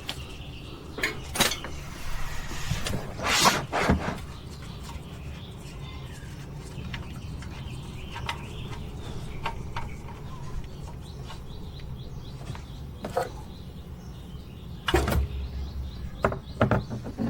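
Scattered clinks and knocks of hand tools and metal parts being handled under a car during an oil change, over a steady low hum. A short rushing noise comes about two to four seconds in, and a cluster of knocks near the end.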